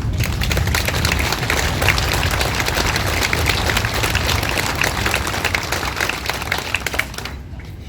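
Crowd applauding: dense clapping from many hands that fades out about seven seconds in.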